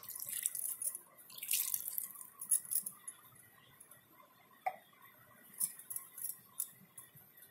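Water trickling and dripping through a cotton straining cloth that holds freshly curdled milk solids (chhena), as the rinse water drains into the pot below. The trickling comes in spells over the first three seconds, then gives way to a few scattered drips.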